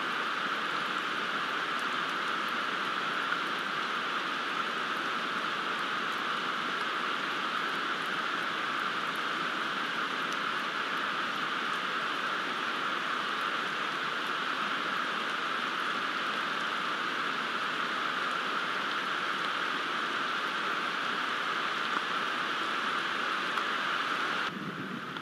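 Steady heavy rain: a continuous even hiss with faint scattered drop ticks. It drops in level and turns duller shortly before the end.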